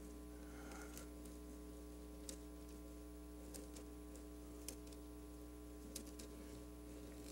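Low, steady electrical mains hum through the church sound system, with a few faint ticks scattered through it.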